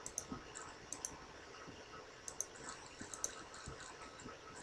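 Computer mouse button clicking: a series of faint, sharp clicks, several in quick pairs, as items are picked from drop-down lists.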